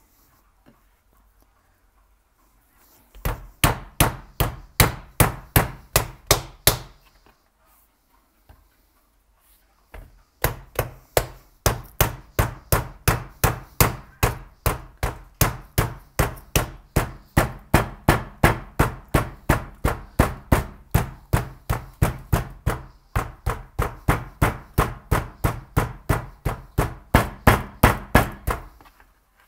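Cold, hard butter under a cover being pounded flat, a steady series of sharp knocks at about three a second. A short run of about a dozen strikes, a pause of a few seconds, then a long unbroken run of dozens more.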